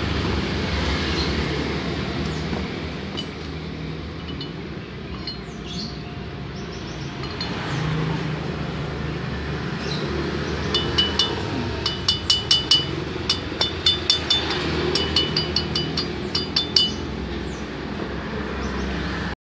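Fingers flicking the cooling fins of a Yamaha Mio M3 cylinder block, which give a quick, uneven run of short, bright metallic pings for about six seconds, over a steady low rumble.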